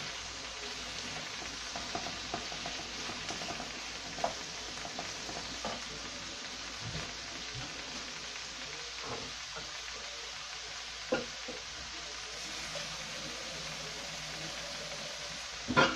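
Broad beans, onion and diced pancetta frying in oil in a pan, a steady sizzle. A few light knocks of a wooden spoon against the pan come in the first seconds, and a louder knock comes just before the end.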